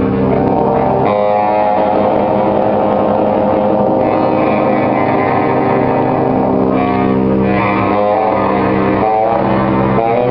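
Live jazz big band music: the reed section and electric guitar hold long, sustained chords, which shift to new chords a couple of times.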